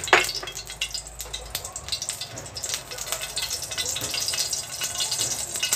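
A small pool of reused frying oil sizzling and crackling in a hot non-stick wok, with a thick run of fine pops. A sharp knock sounds right at the start.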